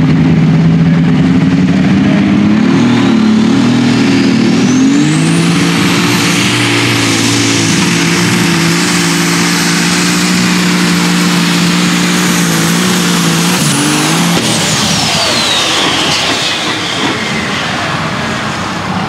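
Light super stock pulling tractor's turbocharged engine under full load on a pull. A high turbo whine rises over the first few seconds and holds steady. About two-thirds through, the engine lets off at the end of the pull and the turbo whine winds down.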